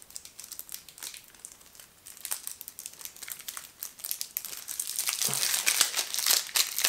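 Plastic shrink-wrap crinkling and crackling as it is picked and torn off a deck of game cards. The crackling gets denser and louder about five seconds in.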